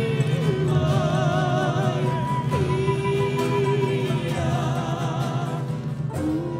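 Music with singing: slow, held notes that waver, over a steady low drone.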